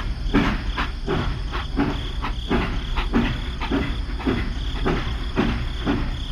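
A small motor running with a steady low hum and a regular chirping pulse repeating a little under twice a second.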